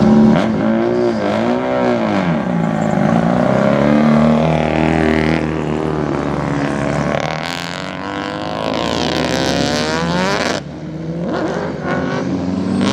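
Racing car engines running, with throttle blips that make the pitch rise and fall in the first couple of seconds. Later a car accelerates with rising engine pitch. The sound breaks off suddenly about ten and a half seconds in, and an engine runs on after it.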